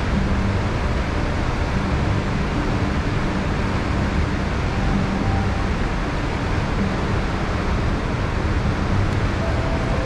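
Steady roar of a fast-flowing river and waterfall, a dense rushing noise that holds level throughout.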